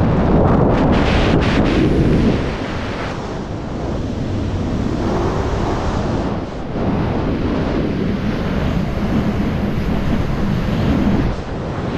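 Wind rushing over a helmet-mounted action camera's microphone in skydiving freefall, a loud steady roar of air that surges and eases a few times.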